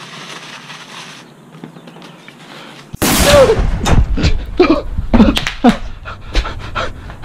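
Paper rustling as it is crumpled, then about three seconds in a sudden very loud bang as the homemade paper firework goes off. A man's voice follows in short, broken gasps and cries.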